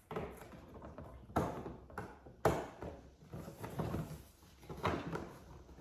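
Cardboard box packaging being handled and its packing tape pulled and torn: irregular rustling with three sharper rips or knocks, the loudest about halfway through.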